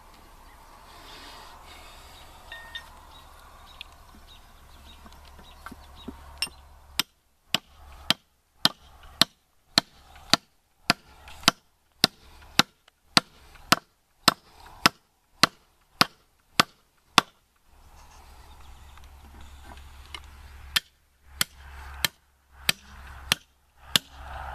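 Hammer blows struck in a steady rhythm of about two a second: a run of some twenty sharp strikes, a pause of a few seconds, then several more near the end, while the anvil top is fastened down.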